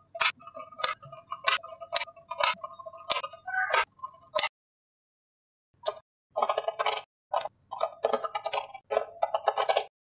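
Small magnetic balls clicking and clinking as they snap together, each click with a brief metallic ring. A few clicks a second at first, then a pause of about a second, then a dense run of rapid clicks.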